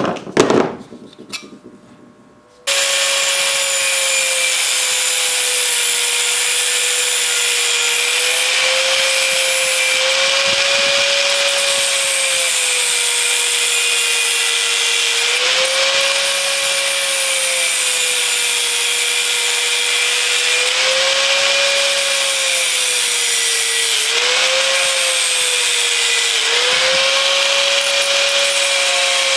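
A handheld electric power tool running steadily and working on material, with a rasping, grinding noise over its motor whine. The whine sags and recovers every few seconds as the tool is pressed into the work. A short clatter of handling comes just before the tool starts, about two and a half seconds in.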